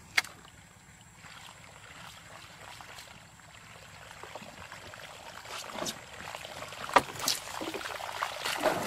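Topwater fishing lure being pulled across a pond's surface, splashing and gurgling in short irregular bursts. The splashes come more often and louder in the second half, with sharp ones about seven seconds in. There is one sharp crack just after the start.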